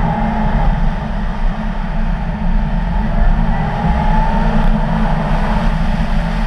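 Audi car driving along a snow-packed ice track: steady engine and tyre noise over a heavy, uneven rumble.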